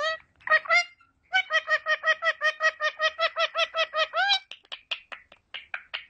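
Indian ringneck parakeet calling in a fast run of short, repeated notes, about six a second, that ends on a rising note. Softer short chirps and clicks follow near the end.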